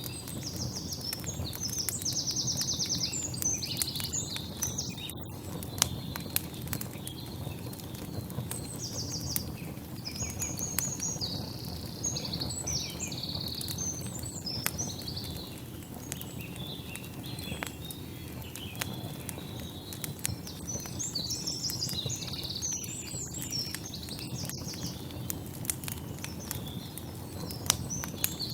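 Small birds chirping and trilling in short repeated bursts, over a steady low background rumble with scattered light clicks.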